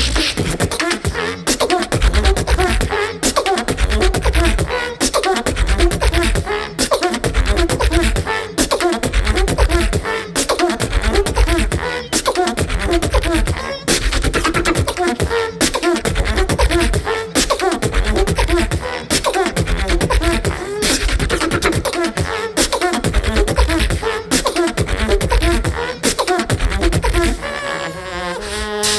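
Beatbox duo performing live together: deep vocal bass kicks about once a second under fast hi-hat and snare clicks, with repeated pitched vocal bass notes on top. Near the end the beat thins out into a rising pitched sweep.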